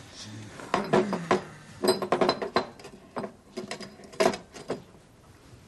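Glass bottle and drinking glass being handled on a wooden coffee table: a series of short knocks and clinks in several clusters, a few of them ringing briefly.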